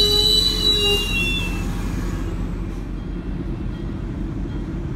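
MBTA commuter coaches rolling slowly past on the track. Steady high-pitched wheel squeal fades out about a second in, leaving the low rumble of wheels on the rails.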